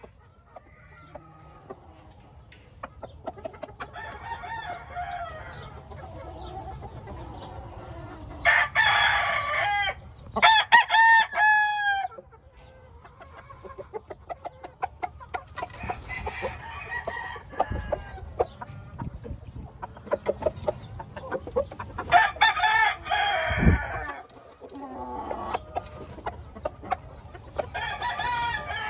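Gamefowl roosters crowing several times, the loudest crows about a third of the way in and again past the middle, with softer chicken calls in between.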